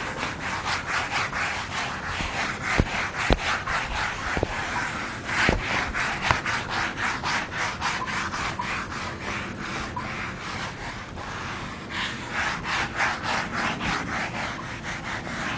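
Whiteboard eraser rubbed back and forth across a whiteboard in quick strokes, about four a second, wiping off marker writing, with a few faint knocks against the board.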